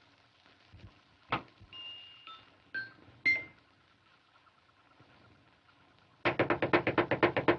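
Sparse cartoon sound effects from an early sound-film soundtrack. A single sharp pop comes about a second in, then a few brief whistle-like pips. Near the end a fast rattle of sharp strikes, like a drum roll, sets in.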